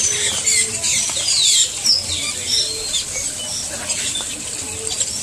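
Many small birds chirping and whistling at once in a walk-through aviary, short calls overlapping one another, over the steady splashing of a small stone fountain.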